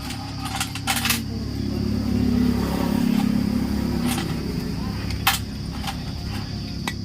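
Hero Splendor motorcycle's single-cylinder engine running with a steady low rumble that rises about two seconds in and eases off again, with a few sharp clicks or knocks over it.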